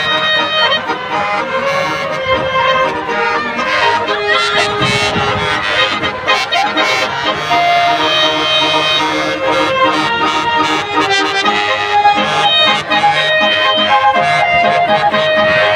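Loud music with held, reedy melody notes, played continuously over a large sound system.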